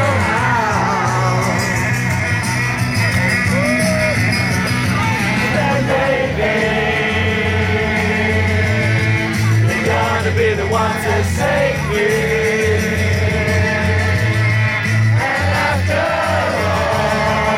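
Loud rock music with a heavy bass beat, with a crowd of men singing along and shouting.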